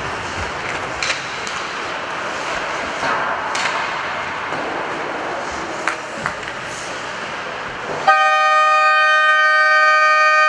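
Ice hockey rink ambience with scattered sharp clicks of sticks and puck, then an arena horn sounds about eight seconds in, one loud steady blast of about three seconds.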